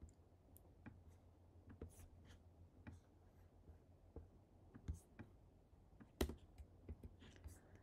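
Faint, scattered clicks from a computer mouse and keyboard, over a quiet room hum. The loudest click comes about six seconds in.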